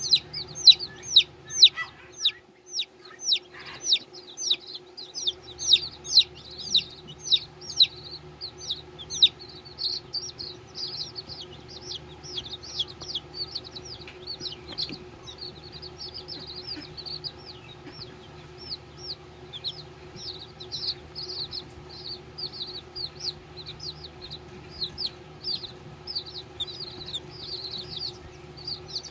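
Baby chickens peeping continuously: short, high, downward-sliding cheeps, evenly spaced at about two a second for the first several seconds, then a denser, overlapping chorus from several chicks.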